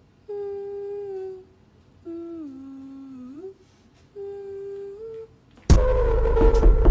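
A woman humming three long held notes with short pauses between them, the middle note dropping lower and sliding back up at its end. Near the end, loud music cuts in.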